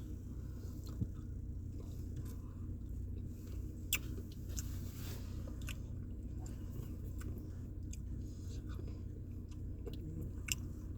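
A person eating a spoonful of Dairy Queen Blizzard soft-serve: chewing and mouth sounds, with a few brief sharp clicks, over a steady low hum.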